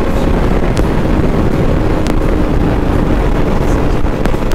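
Motorcycle engine running under heavy wind rush on the rider's microphone, with a faint steady engine note in the middle.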